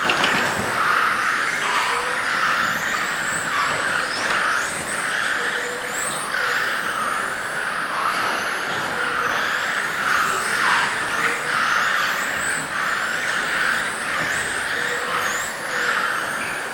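A pack of electric RC GT cars with 17.5-turn brushless motors racing round the track. The motors and drivetrains whine continuously, the pitch repeatedly rising and falling as the cars accelerate and brake, with a steady rush of tyre and running noise underneath.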